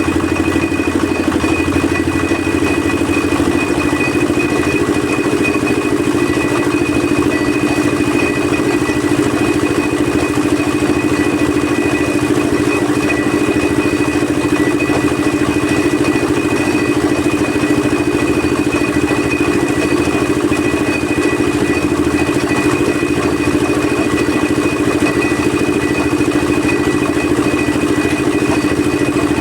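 Small engine of a concrete mixer running steadily at an even speed, with a faint high whine over the engine note.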